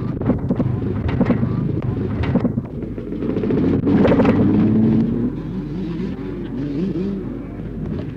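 Several two-stroke motocross bikes running and revving, their engine notes rising and falling, with one held at a loud steady rev about four seconds in.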